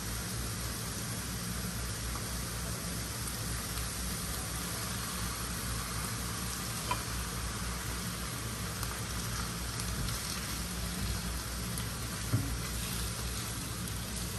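Diced tomatoes and peppers sizzling steadily in a frying pan over a gas burner, with a spatula knocking the pan now and then, once more sharply about 12 seconds in.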